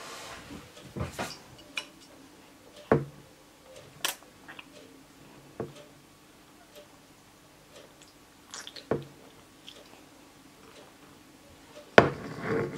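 A plastic baby spoon tapping and scraping against a bowl of mashed grapes during spoon-feeding: scattered single clicks and knocks a second or two apart, the loudest knock near the end followed by a short scrape.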